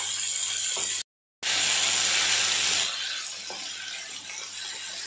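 Minced mutton and goat liver sizzling as they fry over high heat in a kadhai, stirred with a spatula. The hiss breaks off briefly about a second in and turns quieter about three seconds in.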